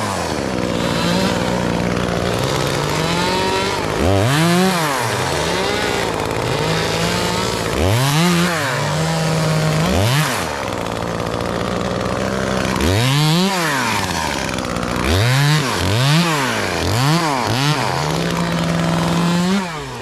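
Chainsaw running and revved up and back down repeatedly as a climber clears limbs in the tree, with a quick run of several revs in a row near the end.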